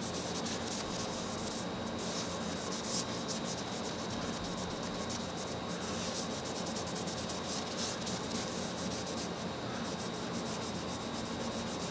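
A rag soaked in sewing machine oil rubbing over the painted cast-iron arm of an antique Singer treadle sewing machine, in quick steady scrubbing strokes that lift off old caked oil and dust.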